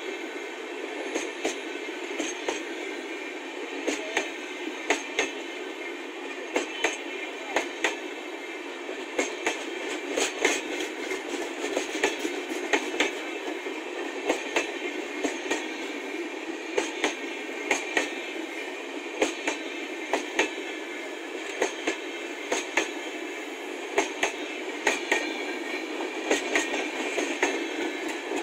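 Passenger train rolling past at speed, its wheels clacking over the rail joints in quick groups of sharp clicks over a steady rolling noise.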